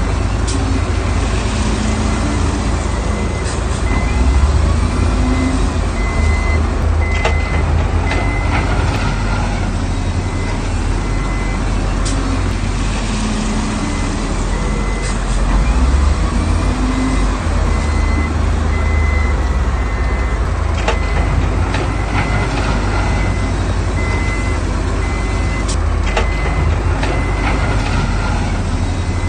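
Heavy diesel construction machinery running under load: bulldozer and dump truck engines with a reverse warning beeper sounding steadily, roughly one beep a second. A few sharp knocks cut through.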